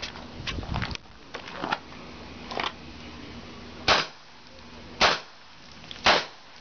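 Three shots from a Smith & Wesson single-action revolver, about a second apart, after a run of lighter clicks and knocks.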